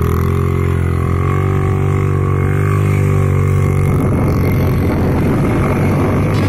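Small commuter motorcycle engine revving steadily as the bike spins in circles in loose sand, its rear wheel sliding; the pitch lifts slightly about a second in and then holds.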